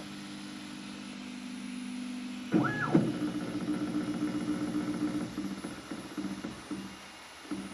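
Resin 3D printer's stepper motor running. It starts as a steady hum of a few low tones. About two and a half seconds in comes a quick whine that rises, holds and falls back as the motor speeds up and slows down. A pulsing hum follows and fades near the end.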